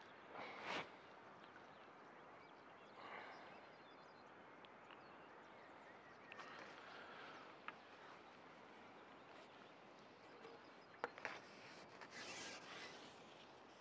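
Near silence: faint outdoor ambience, with a few soft, brief sounds and a few sharp clicks and a short rustle near the end.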